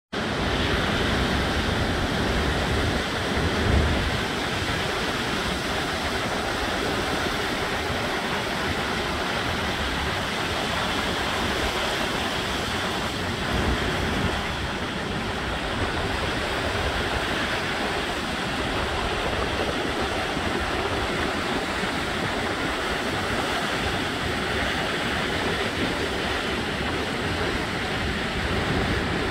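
Atlantic surf breaking on a reef and washing up a pebbly beach, a steady wash of waves, with wind rumbling on the microphone now and then.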